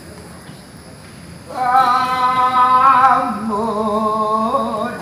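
A solo voice singing long, held notes with a wavering vibrato, coming in about a second and a half in after a quieter stretch, and dropping to a lower held note around three seconds in.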